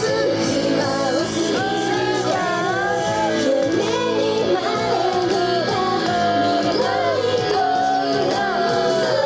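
A pop song performed live: voices singing a wavering melody over steady instrumental accompaniment.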